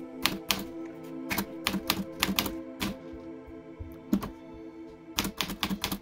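Typing on an SCM Smith Corona Super G portable typewriter: keys struck in irregular runs, each typebar hitting the platen with a sharp clack, over background music.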